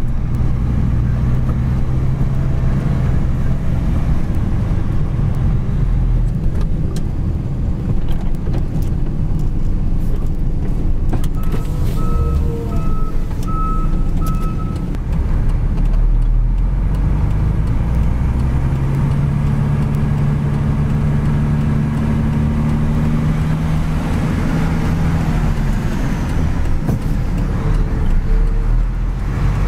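Mitsubishi Fuso truck's diesel engine running under way, heard from inside the cab. The engine note dips about sixteen seconds in, then rises and holds higher from about nineteen seconds.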